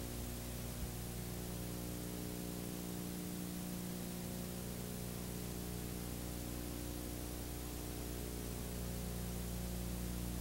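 Steady hiss with a low electrical hum and no program sound: the blank stretch of an old videotape transfer.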